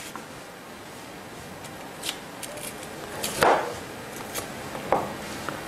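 Chef's knife cutting a yellow bell pepper on a wooden cutting board: a few separate knife strikes on the board with small ticks between, the loudest about three and a half seconds in.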